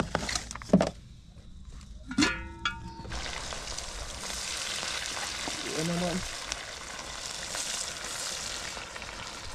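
Seasoned potato wedges frying in hot cooking oil. The sizzle starts suddenly about three seconds in, as they go into the oil, and then holds steady.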